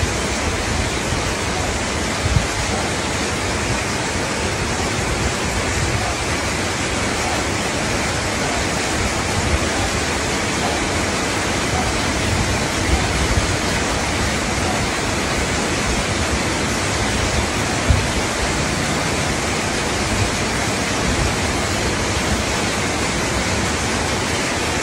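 Steady, loud hiss like static or rushing water, unchanged throughout, with a few soft low thumps scattered through it.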